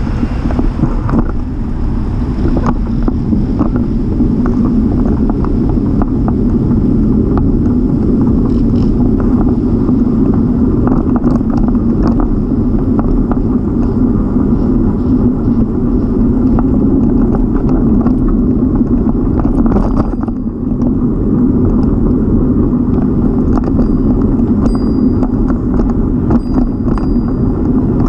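Bicycle rolling over paved paths: a steady low rumble of tyres and frame vibration, with scattered short knocks and a brief lull about twenty seconds in.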